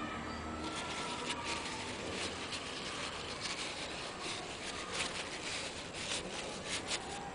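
Rubbing and scraping with short irregular clicks as a Citroën 3CV brake master cylinder is handled and rubbed with a rag.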